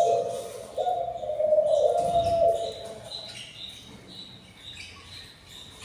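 Budgies chirping: a run of short, high chirps in the second half. It follows two long, steady, low tones in the first half, which are louder than the chirps.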